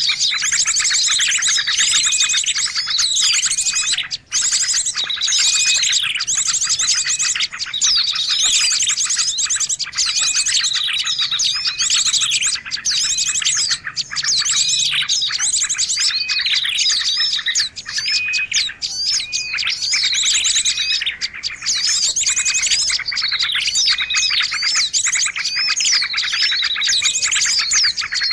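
Dense, loud bird song of rapid chirps, trills and whistled slurs, with the same phrases repeating over and over, a recorded lure call (suara pikat) played to attract wild birds.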